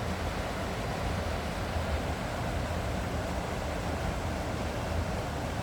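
River water rushing steadily, an even hiss that does not change.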